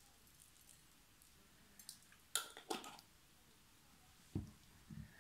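Quiet handling of food being garnished: a brief cluster of soft ticks and rustles about halfway through, as sesame seeds are sprinkled by hand over honey-glazed fried pastries on a plate. Two dull low knocks follow near the end.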